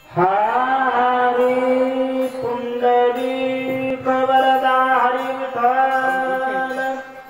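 Male voice singing one long held note of a devotional chant. It slides up into the note at the start and sustains it steadily for about seven seconds.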